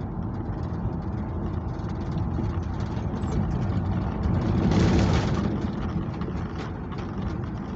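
Chevrolet C10 pickup driving, heard from inside the cab: steady engine and road noise with small knocks and rattles from a rough road surface. The noise swells to a louder rush about five seconds in.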